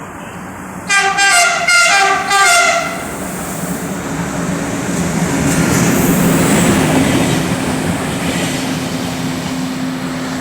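Captrain CAF Bitrac locomotive sounding its multi-tone horn in several short blasts about a second in, then passing with a rising and fading rumble and a steady low drone from its running gear and engine.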